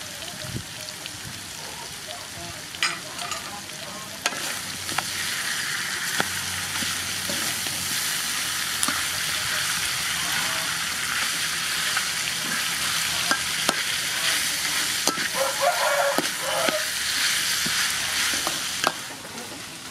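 Chicken, ginger and onion sizzling in a hot wok as they are stir-fried, with a spatula scraping and clicking against the metal. The sizzle grows louder about four seconds in and drops away just before the end.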